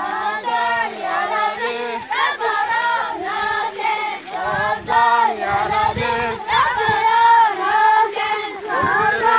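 A group of children singing a chant together as they walk, a prayer for rain.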